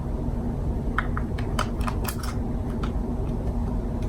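Scattered light clicks and taps from a compact camera being handled, as something is being fitted into it, over a steady low background hum.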